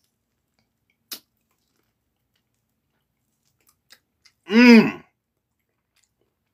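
A man eating a barbecued rib: one sharp click of a bite about a second in and a couple of faint mouth ticks, then a short hummed vocal sound from him, pitch rising then falling, about four and a half seconds in and louder than the rest.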